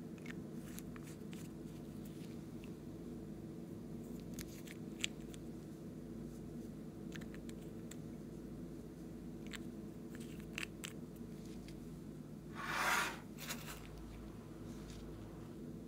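Small scattered clicks and taps of glass nail polish bottles and their caps being handled and opened, over a steady low hum. A brief, louder scraping rustle comes about three-quarters of the way through.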